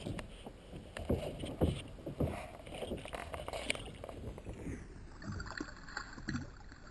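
Irregular soft knocks and small water splashes around a small fishing boat, over a low rumble of water and wind.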